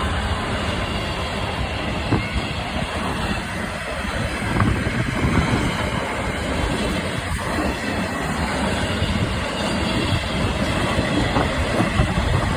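DB Class 66 diesel locomotive and its train passing on the line, a steady rumble of wheels on the rails with some clatter.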